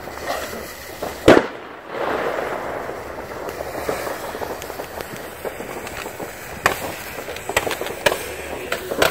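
Fireworks going off: a sharp bang about a second in, then a steady hissing spray of sparks from a ground-launched firework, and from about two-thirds of the way through a run of crackling pops that grows denser toward the end.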